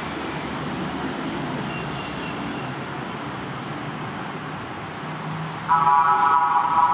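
Steady traffic noise, then near the end a loud vehicle horn sounds for about a second and a half on one steady pitch.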